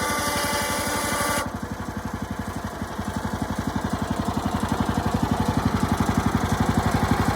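A small engine running with a steady, even pulse of about ten beats a second, getting a little louder toward the end. Background music stops abruptly about a second and a half in.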